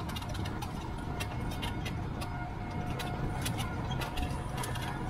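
A steady low rumble of road and wind noise from a moving e-bike, with light, irregular rattling clicks throughout.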